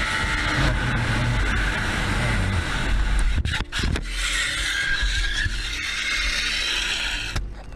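Motorcycle riding through traffic: steady engine and road noise, cutting off abruptly near the end.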